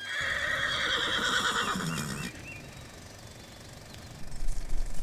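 Horse whinnying: one long, loud call that breaks off about two seconds in.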